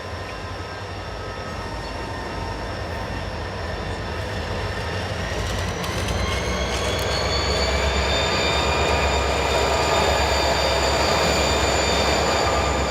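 Train passing: a low rumble that builds in loudness, with high, steady squealing tones from the wheels that rise in pitch about halfway through.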